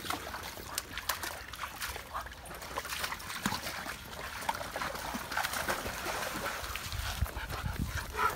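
Dogs splashing and stepping through a shallow stream, with a few short dog whines, and a low rumble near the end.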